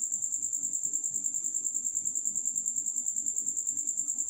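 A cricket chirping in a steady, high-pitched trill of rapid, even pulses, with faint rubbing from gloved hands working spice paste into a raw leg of mutton.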